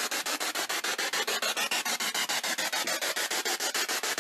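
Spirit box radio sweeping through stations: a steady hiss of static chopped into about ten short bursts a second.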